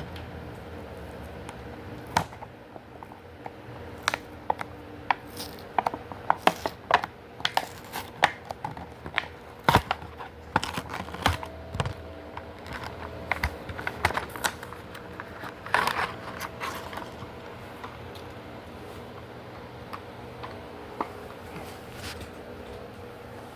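A package being handled and opened: many irregular sharp clicks and taps, busiest in the first two-thirds and thinning out near the end, over a steady low hum.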